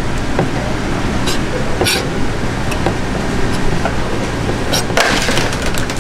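Steady low hum and hiss of a busy fish market, with scattered sharp clicks and knocks and a quick cluster of them near the end.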